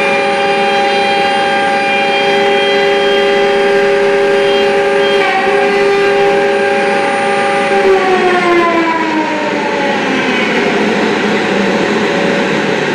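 Plunge router running at speed with a steady high whine while routing wood, then switched off about eight seconds in, its pitch falling as the motor winds down over a couple of seconds. A dust extractor keeps droning underneath.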